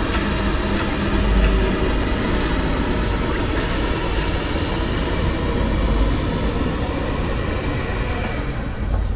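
Xiaomi Robot Vacuum X20+ running with a steady mechanical whir and a few faint high whining tones as it drives up onto its docking station.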